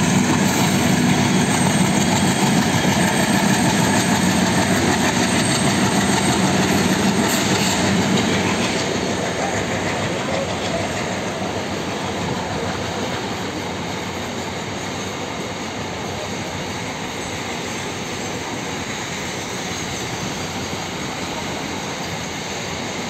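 Container freight train rolling past, its wheels running over the rails in a steady noise. A low drone, typical of the twin Alco diesel locomotives, is strongest for the first eight seconds or so, then fades, leaving only the wagons rolling by.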